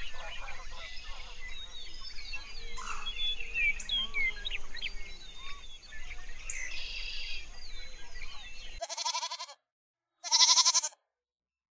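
Goat bleating twice in quick succession near the end, each bleat wavering and the second the louder. Before it come several seconds of small birds chirping and twittering over steady outdoor background noise.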